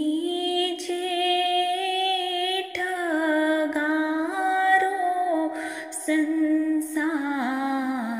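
A woman singing a ginan, an Ismaili devotional hymn, in long held notes that glide from one pitch to the next.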